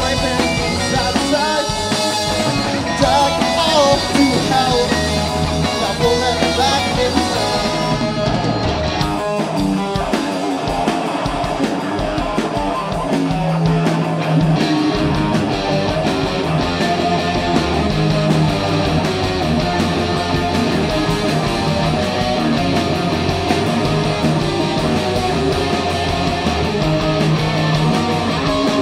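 Live rock band playing with electric guitars and a drum kit, loud and continuous.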